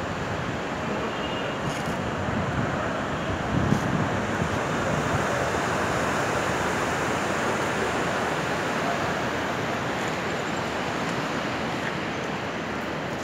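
Fast mountain river rushing over boulders: a steady white-water rush, with a brief bump in level a little under four seconds in.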